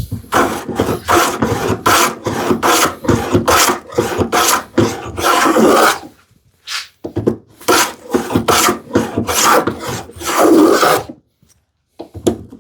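Combination plane plowing a groove in a wooden rail, each stroke a short rasping cut of shaving. The strokes come about two a second, in two runs broken by a pause about six seconds in, with a few longer strokes among them.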